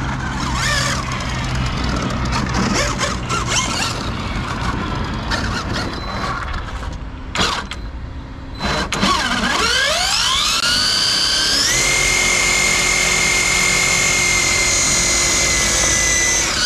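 Large-scale RC truck's brushless electric motor and tyres: a varying whine with tyres scrubbing on tarmac as it slides on low-grip tyres. About nine seconds in, the motor whine climbs steeply in pitch and then holds a steady high pitch until the end.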